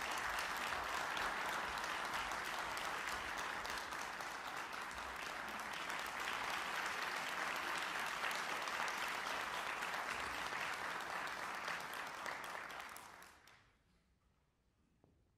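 Audience applauding steadily, a dense patter of many hands clapping that dies away about thirteen seconds in.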